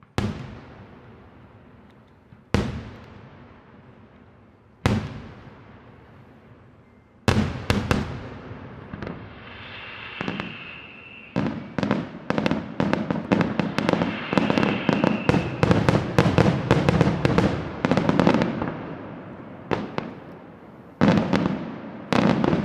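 Aerial fireworks bursting: three single shell bursts a couple of seconds apart, then a fast barrage of many bursts and crackles lasting about ten seconds, then a few more single bursts near the end.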